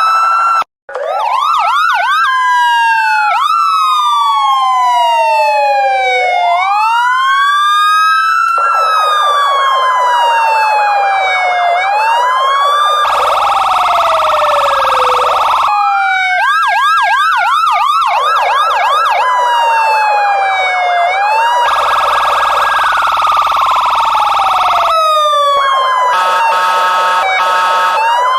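Electronic police car sirens switching abruptly between a slow rising-and-falling wail, a fast yelp and rapid pulsing tones, with a brief dropout about a second in.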